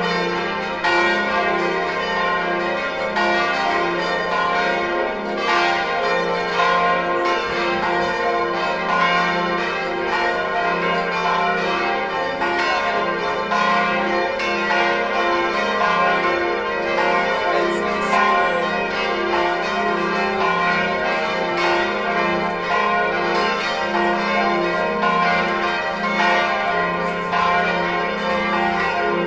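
Five large electrically swung church bells, cast by De Poli in 2010 and tuned F, G, A, B-flat and C, ringing together in a festive 'distesa', the call to Sunday Mass. Their strokes overlap in a continuous, rolling peal with long ringing tones.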